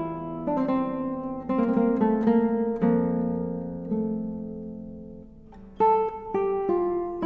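Background acoustic guitar music: plucked notes and chords ringing out. About three seconds in, one chord is left to fade slowly, and new notes begin near the end.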